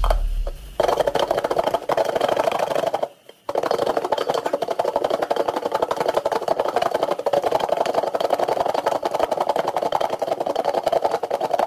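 Cut green mango slices being shaken in a bowl held shut with a stainless steel lid: a continuous fast rattling and tumbling, with a brief pause about three seconds in.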